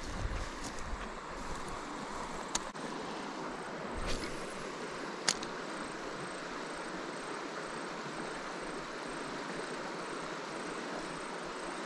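Steady rush of a river running fast over rocks into a pool. A couple of sharp clicks from the spinning reel and rod come as a lure is cast, and there are low handling bumps near the start and about four seconds in.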